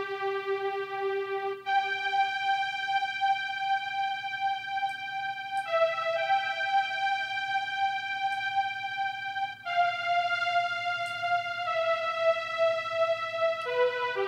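Sustained synthesizer pad chords, moving to a new chord every two to four seconds, run through the RoughRider 3 compressor plugin, which is gently riding the pad's level.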